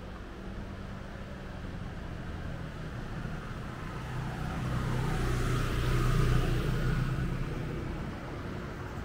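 A motor vehicle passing close by on the street: its engine hum swells to a peak about six seconds in, then fades.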